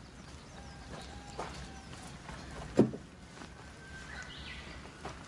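Scattered light knocks and clicks, with one sharp louder knock about three seconds in: tools and parts being handled while a car is repaired.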